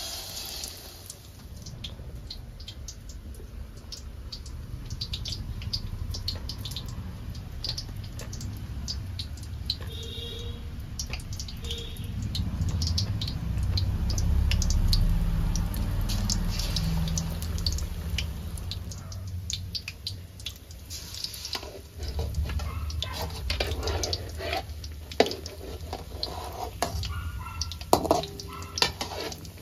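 Tap water running and splashing into a kitchen sink, with irregular drips and small knocks. The flow is heaviest in the middle and again about two-thirds through.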